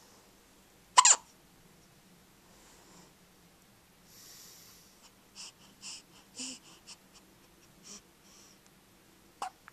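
Hiccups: one sharp, loud hiccup about a second in and another shortly before the end, with quieter short breathy sounds in between.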